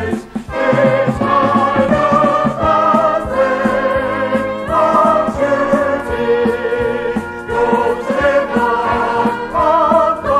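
A small vocal group singing a Christian gospel song in harmony over instrumental accompaniment, the voices holding notes with vibrato.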